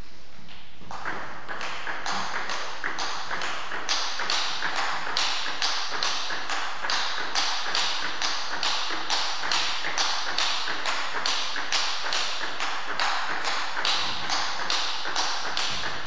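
Table tennis warm-up rally: the ball clicking off bats and table in a steady, even rhythm of about two to three sharp hits a second, starting about a second in.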